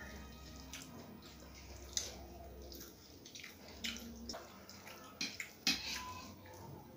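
Eating sounds: fingers mixing rice on steel plates, with a handful of scattered soft clicks and clinks of hands and a spoon against the metal plates.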